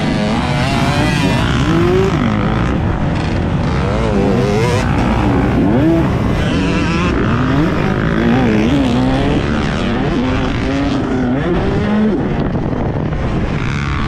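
Dirt bike engine revving hard and easing off again and again as the rider works the throttle through turns and jumps, its pitch rising and falling every second or two. Heavy wind rush on a helmet-mounted microphone runs under it.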